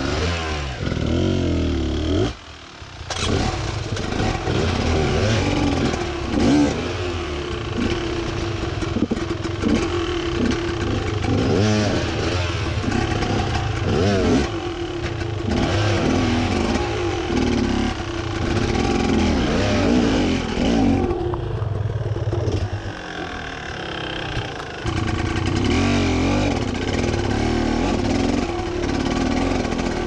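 Enduro motorcycle engines revving up and down under load while climbing over rock, with some clatter. The engine note drops out briefly about two and a half seconds in and runs softer for a few seconds past the twenty-second mark.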